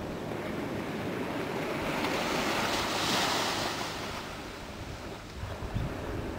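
Small ocean waves breaking and washing up on a sandy beach, a steady surf hiss that swells to its loudest about halfway and then eases. Wind buffets the microphone with low rumbles near the end.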